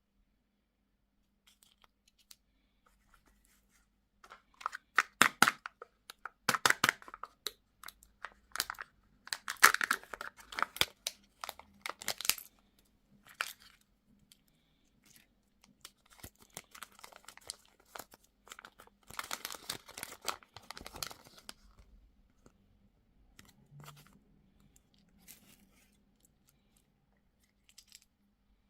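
Bursts of crackly tearing and crinkling, like a wrapper being torn open and handled, with quiet pauses between the bursts.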